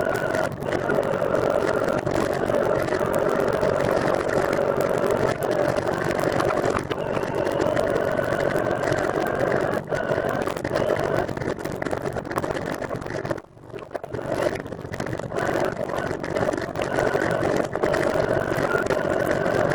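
Steady riding noise from a recumbent trike rolling along a road: a hum with a fainter whine over it and scattered small knocks, dropping off briefly about two-thirds of the way through.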